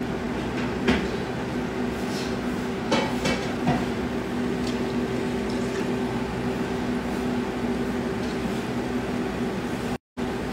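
Battered chicken pieces deep-frying in hot oil: a steady sizzle and bubbling over a constant low hum, with a few light knocks about a second in and around three seconds in.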